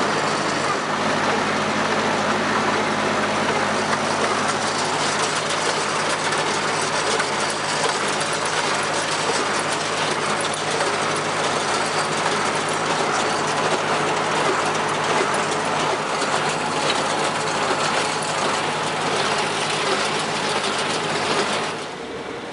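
Tractor engine running steadily under a continuous clattering of haying machinery. The sound drops off suddenly near the end.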